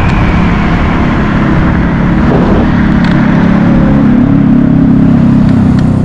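Loud wind buffeting the microphone as a Dualtron Thunder 2 electric scooter is ridden at speed, with a steady low drone underneath that grows stronger about two seconds in.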